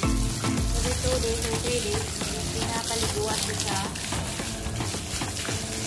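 Water from a garden hose spraying onto a dog's wet coat, a steady hiss, with some wavering pitched tones over it.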